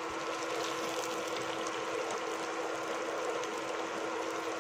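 Diced vegetables and fish balls sizzling steadily in a stainless steel pot, a soft even crackle with a faint steady hum underneath.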